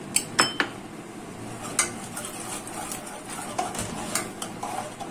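Metal spoon stirring custard in a metal pot, clinking and scraping against the pot: a quick cluster of sharp clinks near the start, another just before two seconds in, and lighter taps later.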